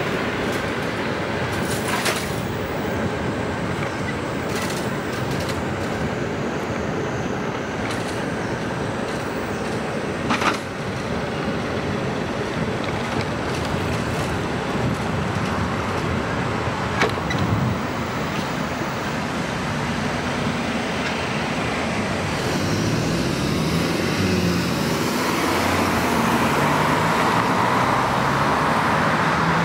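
Road traffic noise: a steady rush of tyres and engines from moving cars, with a few sharp clicks. Over the last third an engine note rises and falls in steps and the traffic grows louder.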